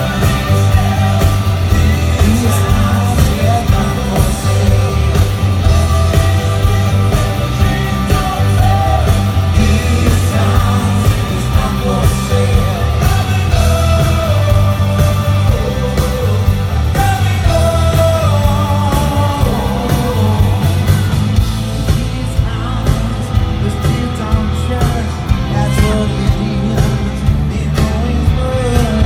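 Rock band playing live, with a singer and a steady drumbeat.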